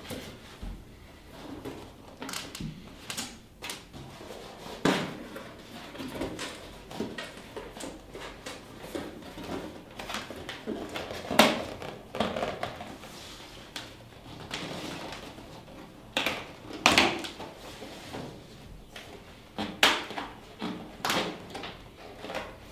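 Corrugated plastic (corflute) panels of a beehive nuc box being handled, folded and pushed through slots: irregular scrapes, creaks and knocks, the sharpest ones about halfway through and in the last third.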